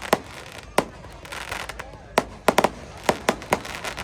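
Aerial fireworks going off: about ten sharp bangs, most of them bunched in quick succession in the second half, with a crackling hiss between the bangs.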